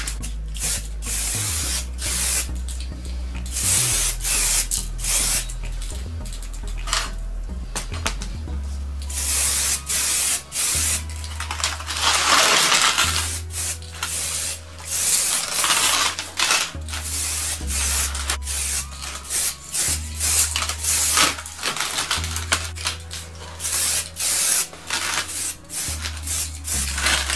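Aerosol spray can of matte black paint hissing in repeated bursts, some short and some about a second long, as a top coat is sprayed on.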